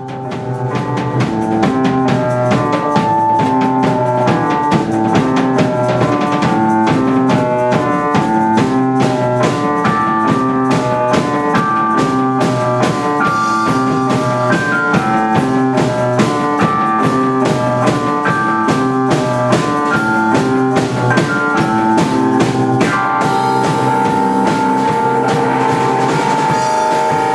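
Live band music: a drum kit keeping a busy beat under keyboard and saxophone, with short repeating notes. About 23 seconds in, a long held note comes in over the band.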